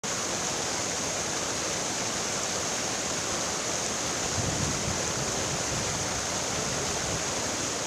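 Steady rush of flowing floodwater, an even noise at a constant level.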